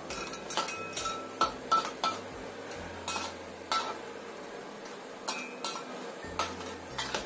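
Metal spatula knocking and scraping against a wok while stirring crabs in simmering sauce. About a dozen irregular clinks, each with a short ring, and a longer gap partway through.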